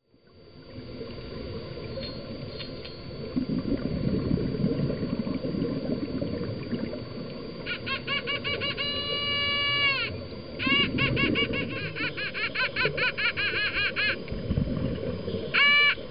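Underwater sound of dolphins whistling and chirping over a steady rush of water and scuba bubbles. From about eight seconds in come fast runs of rising-and-falling chirps, several a second, one held whistle, and more chirp runs near the end.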